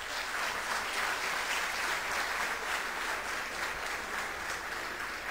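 Audience applauding, starting suddenly and holding steady, easing off slightly near the end.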